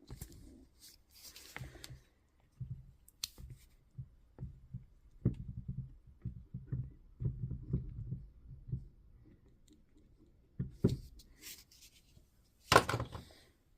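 Parts of a Dewalt angle grinder being handled and greased during reassembly: irregular small knocks, clicks and rubbing, busiest in the middle, with one sharper knock near the end.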